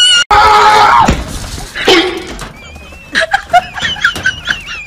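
A loud burst of noise lasting about a second near the start, then a dog whining and yelping in short, high-pitched cries that rise and fall, repeating quickly through the second half.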